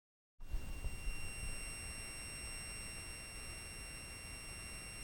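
A steady high-pitched squeal with a hiss from the onboard speaker of a 1980 Yamaha Portasound 2 keyboard. The keyboard is switched on and idle, and no keys are being played. Some low bumps come in the first second, as the microphone is handled close to the speaker.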